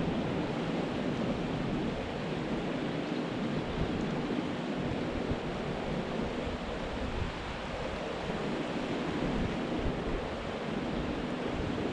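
Steady rush of a shallow creek running over a riffle, with wind buffeting the microphone.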